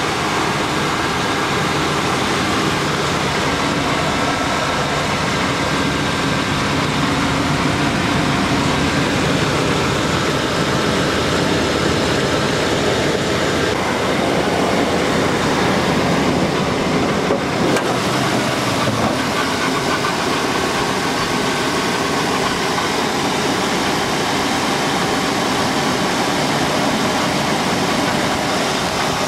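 Chevy 350 small-block V8 in a 1989 Chevy C1500 pickup, idling steadily.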